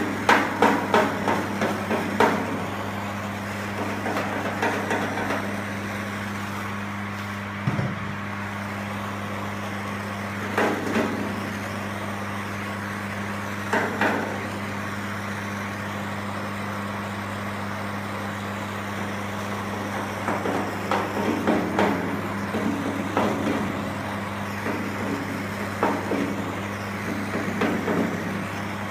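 Body lead being smoothed on a car-body seam with lead-working paddles: clusters of short scrapes and taps, busiest at the start and again in the last third, over a steady low hum.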